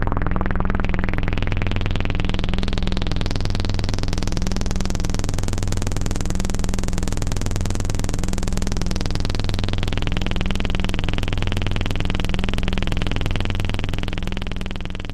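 Synthesized sci-fi drone effect: a steady, buzzy low hum with a rapid pulsing texture. It brightens over the first few seconds, darkens again about ten seconds in, and fades out at the end.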